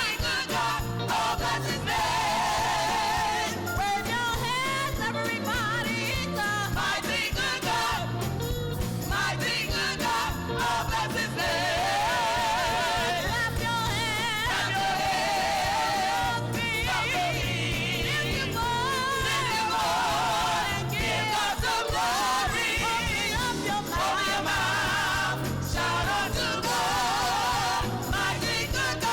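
Gospel singing with vibrato over a band's steady bass accompaniment.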